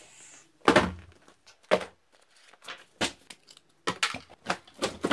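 A cardboard box set down on a desk with a thud, then its flaps opened and the packaging inside handled: a series of sharp knocks and rustles, coming thick and fast near the end.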